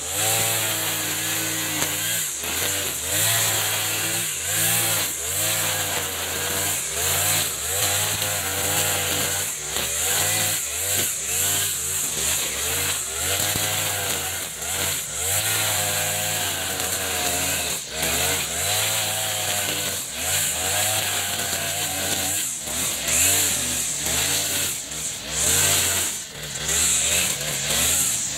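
Echo RM435 40cc two-stroke brush cutter running at high throttle, its nylon trimmer line cutting thick grass. The engine pitch dips and recovers over and over as the line bites into the dense growth.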